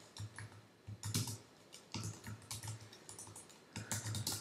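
Typing on a computer keyboard: short bursts of rapid keystrokes with brief pauses between them.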